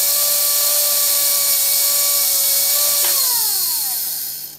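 Renault Scenic electronic parking brake's small Johnson DC motor running on bench power: a steady high whine with a hiss. About three seconds in, the power is cut and the whine falls in pitch as the motor spins down and stops. The motor turns freely in this direction, but the owner finds it will not spin the other way and takes the motor to be the fault.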